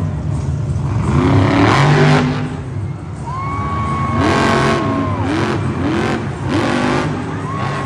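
Monster truck's supercharged engine revving hard. It surges about a second and a half in, then gives four quick blips of the throttle in the second half, with a high whine over them.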